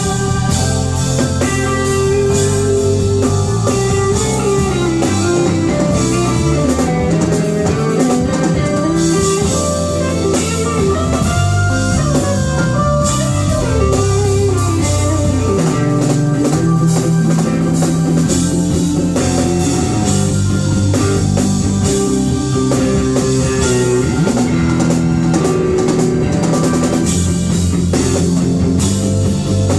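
Live band playing a groove: an electric guitar plays bending, sliding lead lines over a drum kit and low steady notes.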